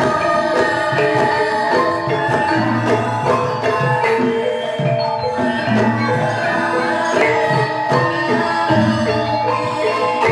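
Campursari gamelan ensemble playing an instrumental passage: bronze metallophones ring a rhythmic melody over hand-drum (kendang) strokes.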